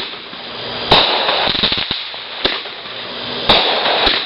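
Fireworks going off: three loud bangs a second or so apart, with smaller pops and crackling between them.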